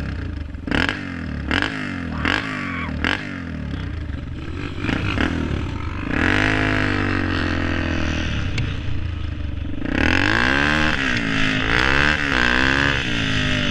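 Dirt bike engine heard from on the bike: a few short throttle blips near idle, then revving hard as the bike pulls away, its pitch climbing and swinging up and down with the throttle.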